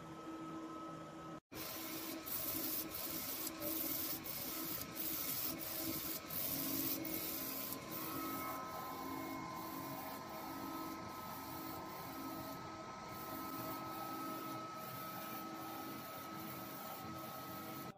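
UV flatbed printer printing: the print-head carriage shuttles back and forth with a steady mechanical whir and fan noise, a light click marking each pass about every two-thirds of a second.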